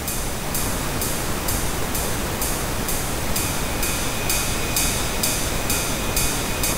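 Ride cymbal sample playing about two hits a second over a steady bed of pink noise. The ride is being equalised as it plays; about three seconds in, its ring takes on a stronger, fuller upper-middle tone as a boost is dialled in.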